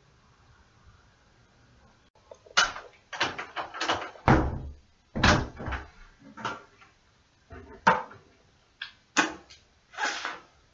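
A dozen or so sharp knocks and bangs at irregular intervals, starting about two and a half seconds in.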